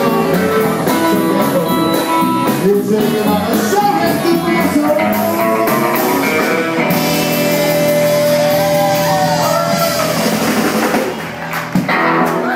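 Live rockabilly band: a male singer over electric guitar and drums. The music drops away near the end.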